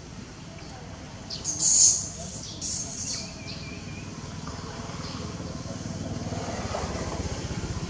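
Two short, high-pitched animal calls about a second apart, over a low engine drone that grows steadily louder toward the end.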